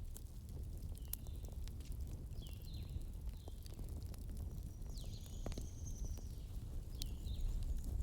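Bonfire burning with a steady low rumble and scattered sharp crackles and pops, the clearest about a second in. Several short high chirps sound over it, with a longer high call around the middle.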